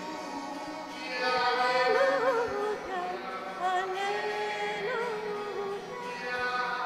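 A female cantor singing slow, long-held notes with vibrato over sustained accompanying chords: a sung church response.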